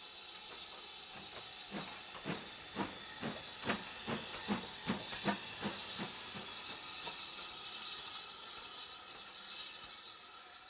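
BR Standard Class 4MT 2-6-4 tank engine working under steam: a run of exhaust beats, about two a second and quickening slightly, over a steady hiss of steam. The beats fade after about six and a half seconds, leaving the hiss.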